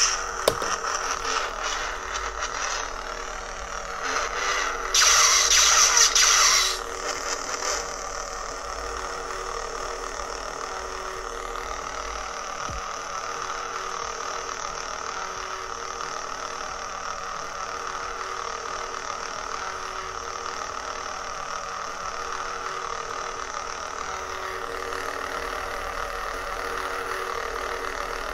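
A cheap lightsaber soundboard plays through its small foam-dampened speaker: a steady electric blade hum that swells twice into louder swing sounds, in the first few seconds and again about five seconds in.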